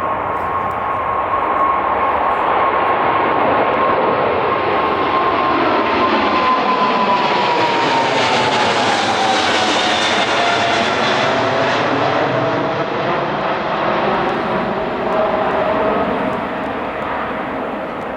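Jet airliner flying past: steady engine noise with a high whine that drops in pitch as it goes by, about halfway through, loudest in the middle and easing off towards the end.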